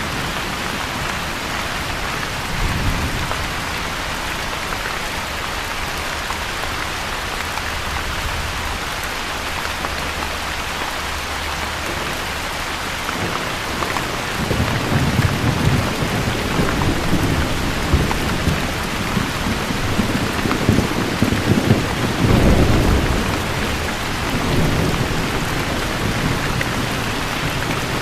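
Steady, heavy rain falling. Low thunder rumbles once briefly about three seconds in, then rolls long and deep through the second half, loudest near the end.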